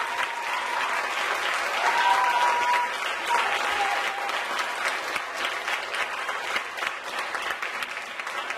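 Audience applauding steadily, with a few voices calling out over the clapping about two to three seconds in.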